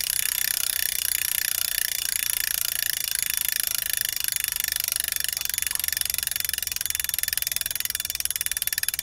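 Freehub of a XeNTiS Mark3 SL rear wheel's XH004 hub freewheeling as the wheel spins on a stand, giving a fast, even ratcheting buzz of pawl clicks that is loud enough to be heard but not obnoxious. The clicks slow slightly toward the end as the wheel loses speed.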